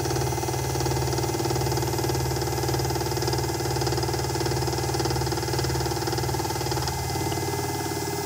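CTV36 drill-milling machine running with its cutter milling a face of the workpiece: a steady motor and spindle hum with a fine, rapid cutting chatter over it. The low hum eases about seven seconds in.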